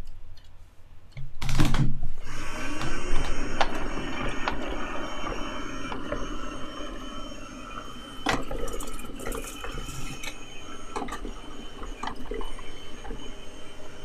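Dirt Devil Spider M607 robot vacuum running on a wooden tabletop. A steady motor and brush whine sets in about two seconds in, with scattered clicks and knocks as it moves.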